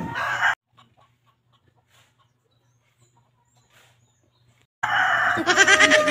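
A chicken clucking loudly, starting about five seconds in after several seconds of near silence.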